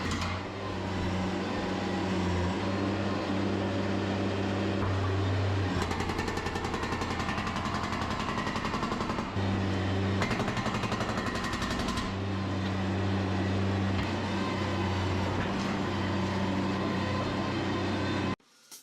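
Engine of heavy construction equipment running steadily with a fast, even pulsing, cutting off suddenly near the end.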